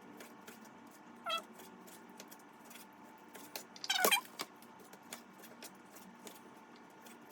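A cat meowing twice, a short meow about a second in and a louder, falling meow about four seconds in, over faint ticks of a knife on a cutting board as raw chicken is cubed.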